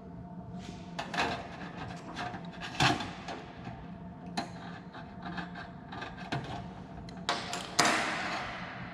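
Tool-handling sounds of marking out sheet metal: scattered small knocks and clicks as a combination square is set down and moved, with short scrapes of the square and a pen on the metal, the longest scrape near the end. A faint steady hum runs beneath.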